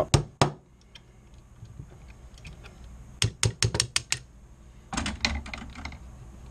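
Small hammer tapping a punch to drive the rear receiver pin out of a Ruger .44 Magnum Carbine's receiver: two sharp taps at the start, a quick run of about six taps a few seconds in, then a few lighter clicks near the end.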